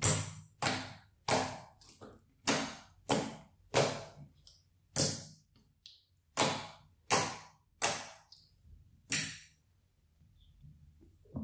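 Green giggly slime being pressed and squeezed by hand, giving a series of short, sharp pops and squelches, about a dozen, one every half second to second. The pops stop near the end.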